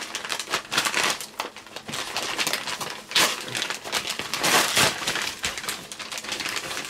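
Padded paper mailing envelope being torn open by hand: irregular crinkling, rustling and tearing of paper, loudest in two bursts a little before and after the middle.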